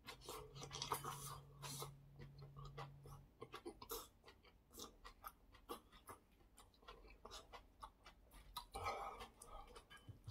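Faint close-up eating sounds: mouth smacks and chewing of malatang noodles and vegetables, with many small irregular clicks. A low steady hum runs through the first three seconds.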